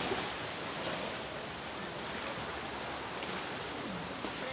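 Sea surf washing against coastal rocks at high tide, a steady, even rush of water.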